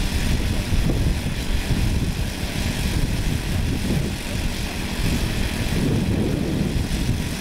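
Four four-stroke model aircraft engines of a radio-controlled B-17 running steadily together as the model taxis on grass.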